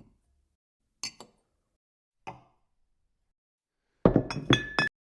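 Short sharp clinks and knocks: single hits about a second apart, then a quick flurry of clattering hits near the end, one of them leaving a brief ringing tone.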